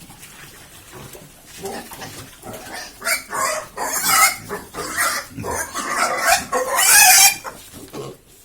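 Pigs squealing in a run of loud, high cries that start about three seconds in, are loudest just before they stop, and cut off near the end.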